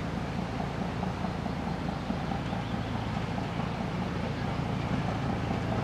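TU4 narrow-gauge diesel locomotive's engine running steadily as the locomotive creeps forward, a low, even drone.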